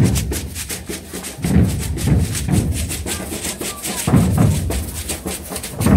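Street percussion group playing large rope-tensioned bass drums (alfaias), heavy low strokes in clusters, over a fast steady rattle of shakers.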